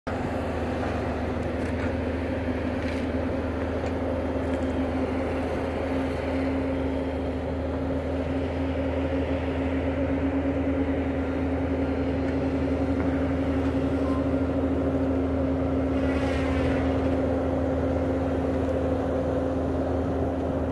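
Bobcat compact track loader's diesel engine running steadily at working speed, with a constant whine held over its hum.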